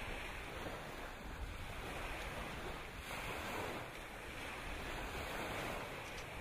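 Choppy lake water washing onto the shore in a strong wind, with wind gusting over the microphone.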